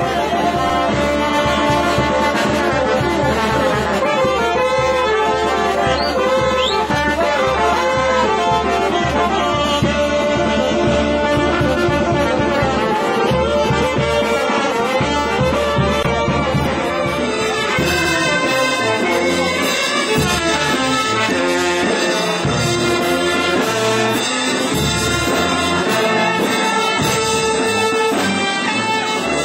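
A brass band plays a tune without a break, loud and steady.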